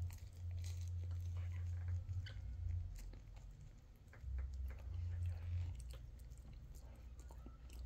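A person chewing a mouthful of soft bread, egg and avocado close to the microphone: small wet clicks over a low rumble that comes in two stretches.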